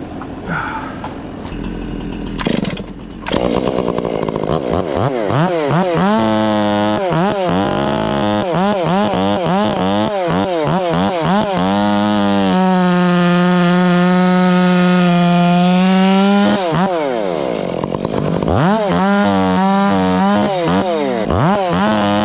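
Two-stroke chainsaw revving up and down again and again, then held at full throttle for about four seconds as it cuts, dropping back and revving up once more: a saw trimming knots off felled logs.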